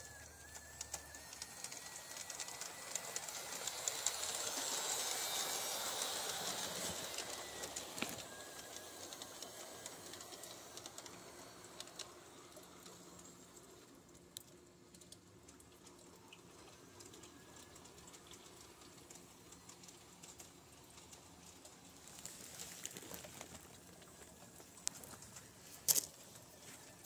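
Garden-scale model train running on brass track: a rapid clatter of small clicks from the wheels on the rails, swelling louder about four to six seconds in and then fading.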